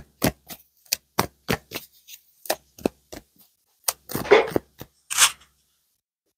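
Tarot cards being shuffled by hand: a run of quick, separate card snaps and taps, a longer rustle about four seconds in, then the handling stops.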